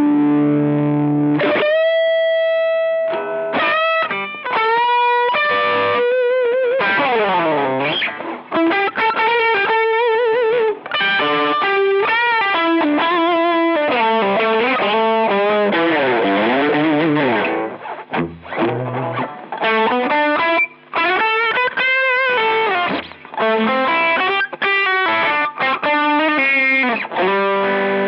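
Electric guitar played through a Boss SD-1 Super Overdrive, a mid-forward overdriven tone: a lead line of sustained single notes with string bends and wide vibrato, broken by short pauses between phrases.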